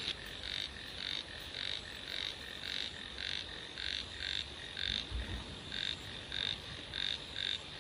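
Frogs croaking after heavy rain, short calls repeating about three times a second over a steady high-pitched background.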